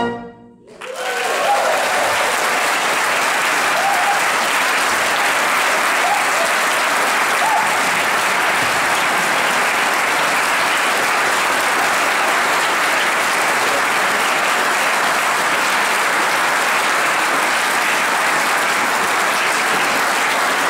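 A band's final chord cuts off right at the start, and after a brief pause an audience breaks into steady applause.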